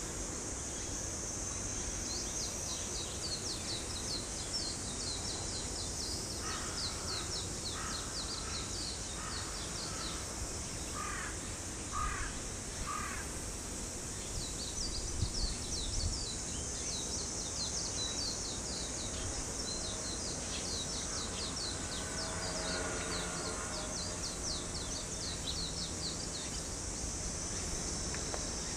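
A bird giving a series of harsh calls, about half a dozen evenly spaced, over outdoor background noise. Two spells of rapid, high chirping run above them, and a couple of low thumps come near the middle.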